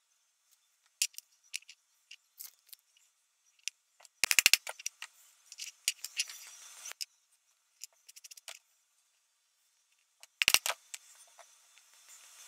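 Hands handling a small leather strap with a metal snap part: scattered light clicks and taps, and two short rattling runs of rapid clicks, one about four seconds in and one near the end, each followed by softer rubbing noise.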